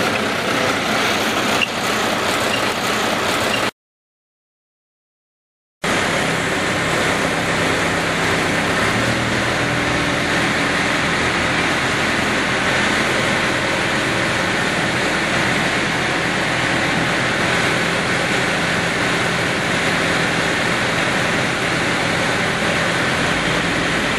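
Crawler-mounted down-the-hole drilling rig running steadily as its drill mast is raised upright, with the sound cutting out completely for about two seconds near the start.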